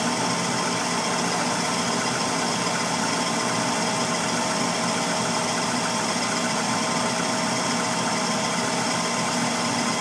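Tempstar gas furnace running with its burners lit: a steady mechanical hum with a few faint steady tones. There are no bangs, so the burners are firing without the delayed-ignition explosion the furnace had before its Honeywell Smart Valve was replaced.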